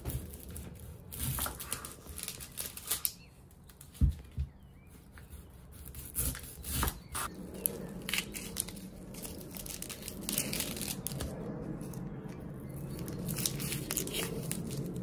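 A chef's knife cutting through a yellow onion onto a wooden chopping board, with a few sharp knocks of the blade on the board about four seconds in. Then the dry, papery onion skin is peeled off by hand, crackling and tearing steadily.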